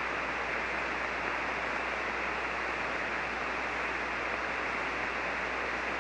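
Steady static hiss from an HF ham radio receiver on 40-metre SSB, with no station transmitting: open band noise filling the receiver's voice passband, with a faint low hum underneath.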